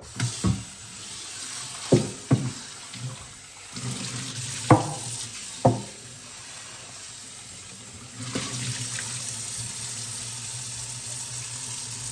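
Kitchen tap running into a stainless-steel sink while a wooden tray is rinsed under it, with several sharp knocks of the wood against the sink in the first few seconds. The water gets louder about eight seconds in.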